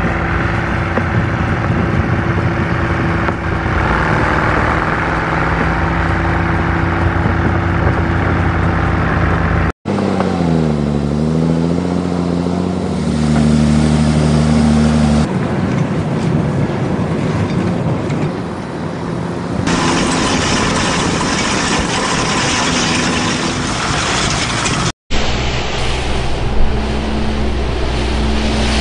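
Heavy diesel engines of snow-clearing machines working, in short clips cut one after another: a wheel loader with a snow-blower attachment, then a large tractor pushing a plow, its engine dipping and climbing in pitch, then a tractor driving a rotary sweeper brush.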